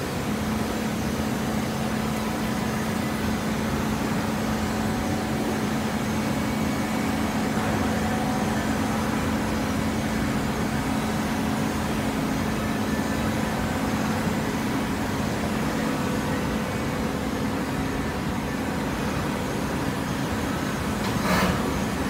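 Fully automatic horizontal hydraulic baler running, a steady hum from its hydraulic power unit over general machinery noise. Near the end there is one brief, louder burst of noise.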